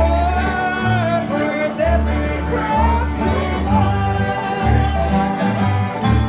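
Live country or bluegrass song: a woman singing over a strummed steel-string acoustic guitar, with a second plucked string instrument and a steady run of low bass notes underneath.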